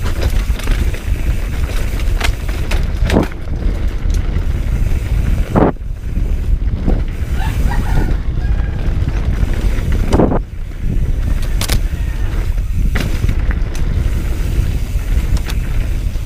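Mountain bike descending a dirt trail at speed: a constant low rumble of wind on the microphone and tyres on dirt, with scattered knocks and rattles from the bike over bumps.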